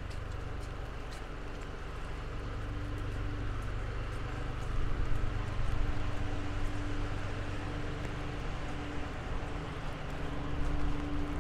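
City street traffic: a steady low engine rumble with a droning hum that comes and goes, over the hiss of passing vehicles, growing louder about halfway through.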